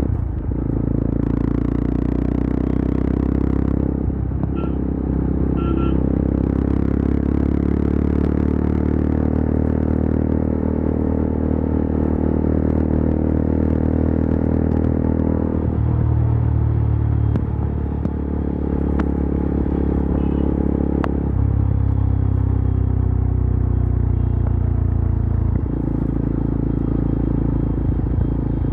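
Yezdi Adventure motorcycle's single-cylinder engine and exhaust running at highway speed, heard from the rider's helmet. The engine note steps to a new pitch several times, and a few faint sharp ticks come in the middle.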